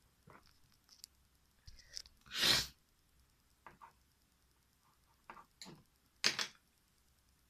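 A person's short, sharp breathy bursts, the loudest about two and a half seconds in and another near the end, with smaller bursts and small clicks between them.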